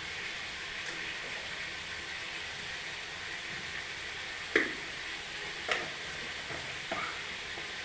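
Food sizzling steadily in a hot pan, with three short clinks of a stirring spoon against the pan in the second half.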